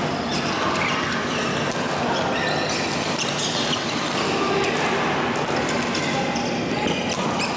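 Badminton play in a large indoor hall: scattered sharp racket hits on shuttlecocks and shoe squeaks on the court floor from several courts, over a steady background of distant voices.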